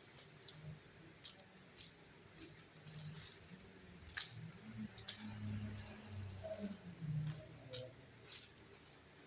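Scattered light clicks and crinkles of packaging being handled and opened, with a faint low murmur in the middle.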